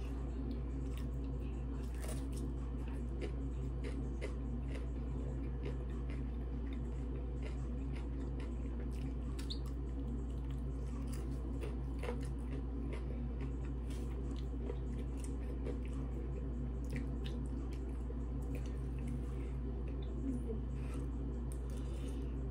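Close-up eating sounds: chewing, and biting into raw cucumber slices, with scattered small clicks and crackles over a steady low hum.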